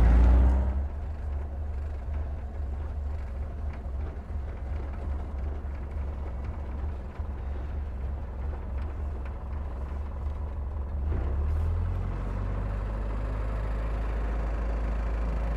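Farm utility vehicle's engine idling, a steady low hum that changes its note slightly about three-quarters of the way through.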